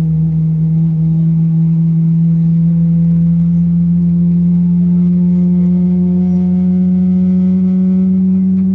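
Boeing 777's jet engines heard from inside the cabin while the airliner taxis: a loud, steady low hum with overtones whose pitch rises slowly as the engines spool up.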